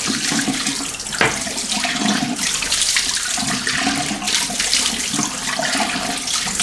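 A bathroom sink tap running, the water splashing steadily as things are rinsed under it.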